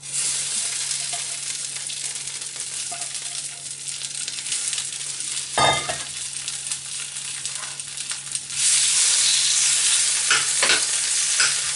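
Snow peas sizzling as they fry in toasted sesame oil in a frying pan. A single knock comes about halfway, and the sizzle gets louder near the end as the peas are turned in the pan.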